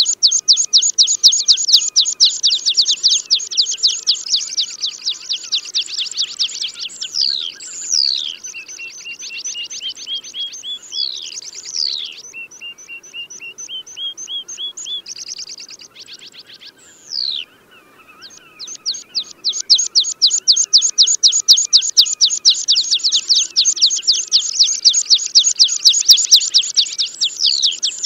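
Tree pipit song: long, very fast trills of repeated high notes, broken by sweeping downward whistles and slower runs of thin notes, with a short break past the middle before the fast trill resumes.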